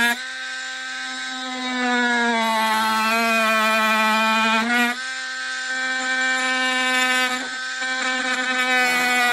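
Oscillating multi-tool buzzing steadily as its blade cuts through the boot carpet. The pitch sags slightly and then recovers as the blade takes the load, with brief dips about five seconds in and again near seven and a half seconds.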